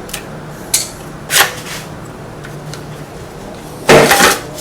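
Clicks and clatter of hand tools and metal starter parts being handled on a workbench: a few light clicks, a short scrape about a second and a half in, and a louder metallic rattle near the end.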